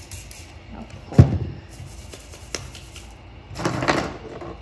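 A sharp knock about a second in, then a short hiss from a spray bottle misting rubbing alcohol onto hands near the end.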